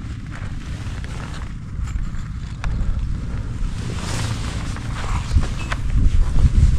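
Wind buffeting the microphone, a heavy low rumble that rises and falls, with a few scattered clicks and bursts of rustling.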